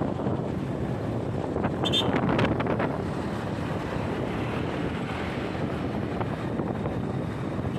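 Wind buffeting the microphone while riding a two-wheeler at road speed, over a steady rumble of engine and tyre noise. A brief high-pitched chirp with a few sharp ticks about two seconds in.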